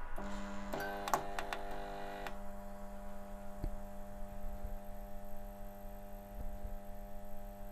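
Fluorescent tube lights starting up: several sharp clicks as the tubes flicker on in the first two seconds or so, then a steady electrical mains hum from the lit fitting.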